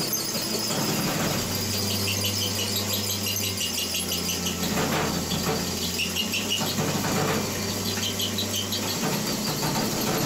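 Drill press running with its bit cutting into the fuse holder of a 20-pound Parrott artillery shell: a steady motor hum with short, repeated high squeals from the bit biting into the metal.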